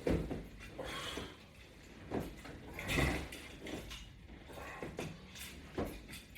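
Repeated creaking and knocking of strap-anchored exercise gear under load during sit-ups, about one stroke a second.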